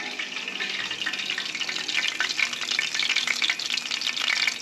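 Hot oil sizzling and crackling around a whole tilapia deep-frying in a pan, with many small pops; it grows a little louder about two seconds in.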